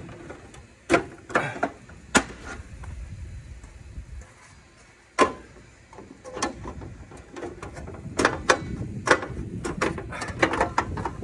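Corrugated aluminium and clear plastic storm panels being slid and knocked into a window's header and bottom track: a scattered series of sharp clacks and rattles, coming thicker and faster in the last few seconds.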